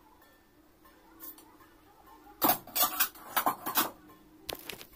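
Stainless-steel kitchen utensils being handled: a quick run of clinks and clatters about halfway through, then one more metallic knock near the end.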